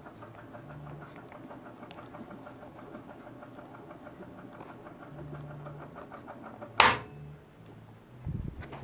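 Darkroom enlarger exposure timing: a fast, even mechanical ticking with a low hum, ended by a sharp switch click about seven seconds in as the enlarger lamp goes off. A dull thump follows near the end.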